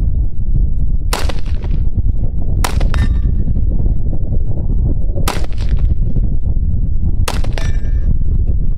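Four rifle shots from an AR-15 with a 20-inch barrel firing 5.56 M855 green-tip rounds at an AR500 steel plate, spaced one and a half to two and a half seconds apart. A brief metallic ring of the steel follows the second and fourth shots. A steady low rumble runs underneath.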